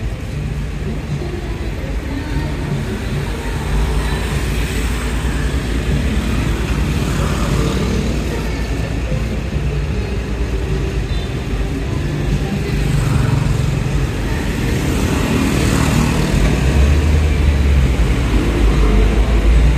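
Steady road traffic noise, a low engine rumble of passing vehicles that grows louder near the end as one comes close.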